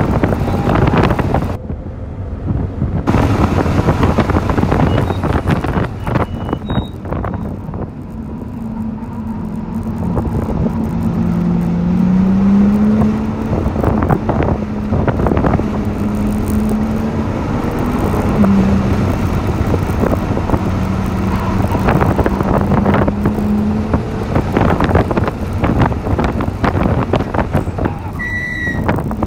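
Inside the cabin of a 2018 BMW M2 driven hard on a race track: its turbocharged inline-six engine running at around 4,000–4,700 rpm, the engine note rising and falling with acceleration, braking and corners, over loud road and wind noise.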